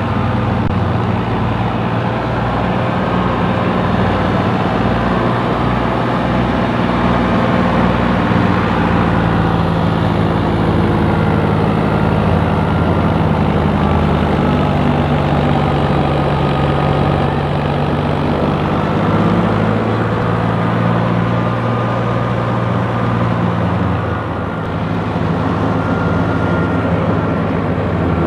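Fiat 480 tractor's three-cylinder diesel engine running steadily under load, driving a wheat thresher through its PTO shaft, with the thresher's drum and fans running along with it. The sound is loud and continuous, dipping slightly for a moment about three quarters of the way through.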